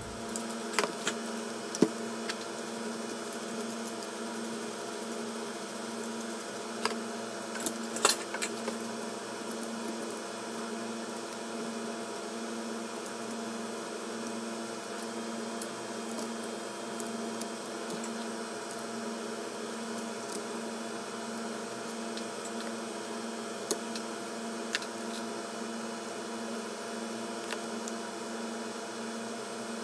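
Steady electrical hum from bench equipment, with several constant tones and a low tone that pulses evenly. Light clicks and taps come through it, the sharpest just under two seconds in, a small cluster about eight seconds in and a couple more later.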